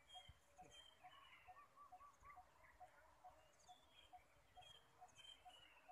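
Near silence with faint birds chirping, and a soft high pip repeating evenly about twice a second.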